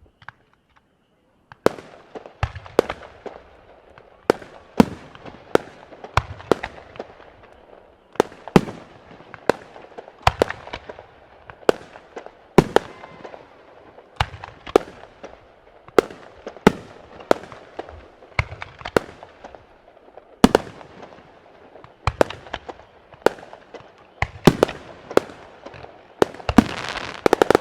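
Aerial fireworks shells bursting in a rapid run of sharp bangs, about one or two a second, starting after a second or so of quiet. The bursts grow denser near the end, with a crackling haze between them.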